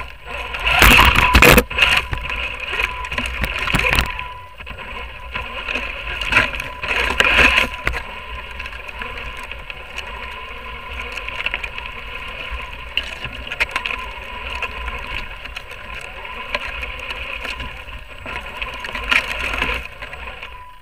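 A bike riding over a bumpy forest dirt trail: a steady rumble with rattling and sharp knocks from the bike over roots and ruts, loudest about a second in and again around seven seconds in.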